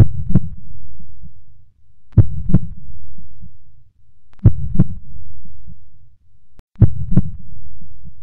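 Slow heartbeat sound effect: a double thump repeating about every two and a quarter seconds, four times, over a low rumble.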